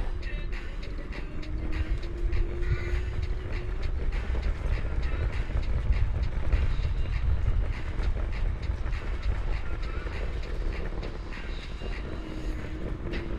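IO Hawk electric scooter riding over a bumpy dirt path: the tyres and frame rattle and click over the ground, under a low wind rumble on the microphone. A faint hum wavers in pitch near the start and again near the end.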